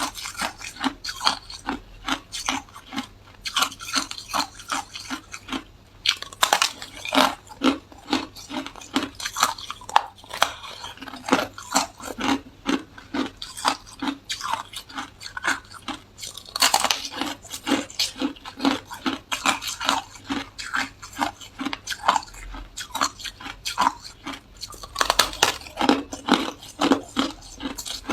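Hard ice being bitten and chewed close to the microphone: a steady run of crisp crunches, about two to three a second.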